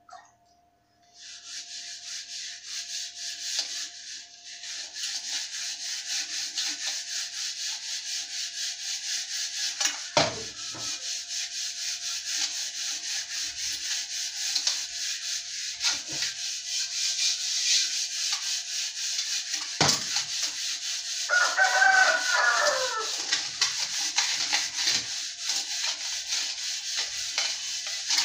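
A brass pot scrubbed by hand with a cleaning paste: a steady, rhythmic rasping rub of hand on metal, broken by three sudden knocks. A rooster crows once about three-quarters of the way through.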